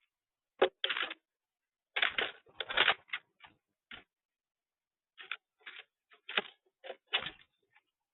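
A woodpecker pecking at wood: irregular clusters of sharp taps, some close together and some spaced apart, with short pauses between.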